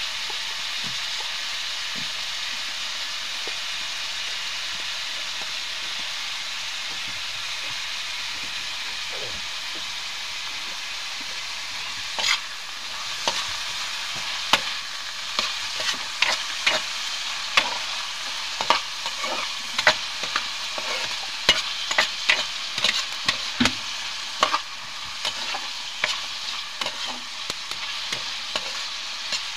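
Sliced bitter gourd with onion and garlic sizzling steadily in oil in a frying pan. From about twelve seconds in, a spatula scrapes and knocks against the pan again and again as the vegetables are stirred.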